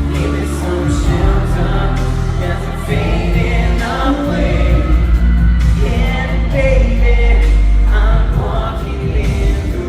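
Live pop band performance with several voices singing together over the band's accompaniment.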